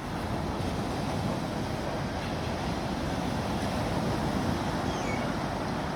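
Sea waves washing in, a steady rushing of surf.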